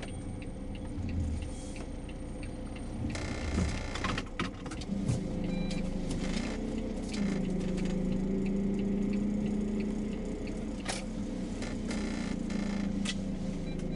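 Car driving slowly through city streets, heard from inside the cabin: a steady engine and road hum that becomes stronger and more even from about halfway through, with occasional light rattles and clicks.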